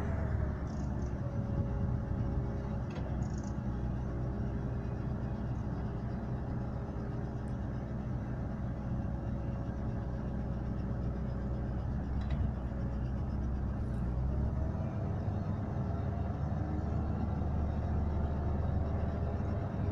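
Komatsu PW140 wheeled excavator's diesel engine and hydraulics working while it digs soil: a steady low rumble with a whine, the whine rising in pitch about three-quarters of the way through as the machine takes more load.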